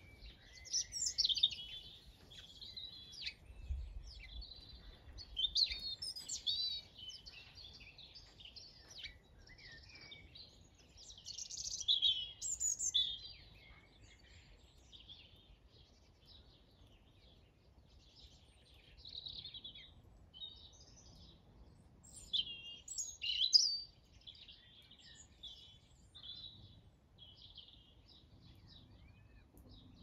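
Several small songbirds singing and calling, a busy run of chirps and quick phrases that comes in bursts, loudest around twelve seconds in and again near twenty-three seconds.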